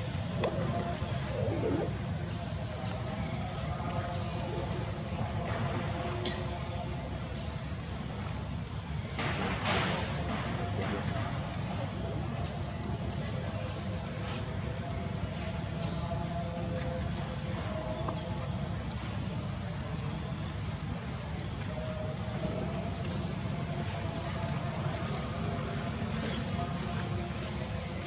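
Insects chirping in a steady high drone, with a short rising chirp repeating about once a second, over a low background rumble.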